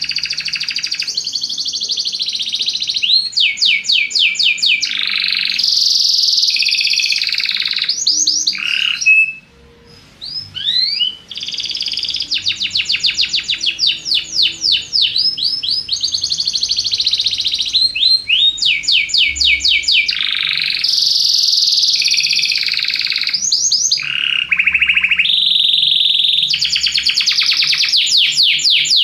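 Domestic canary (canário belga) singing a long song of rapid trills and rolling repeated notes, breaking off briefly about nine seconds in and then resuming.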